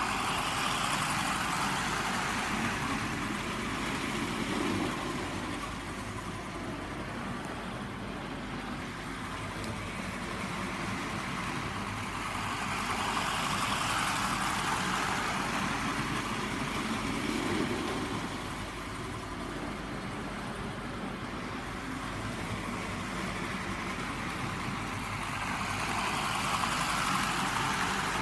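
Model train running along the track, its motor and wheels rising and falling in loudness as it comes round the layout and passes close by, about every 13 seconds.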